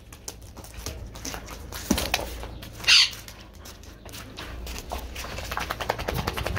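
Flip-flops slapping on wet stone tiles as someone walks up close, with one short, sharp hissing burst about three seconds in. Near the end come denser knocks and rubbing as the recording phone is handled and picked up.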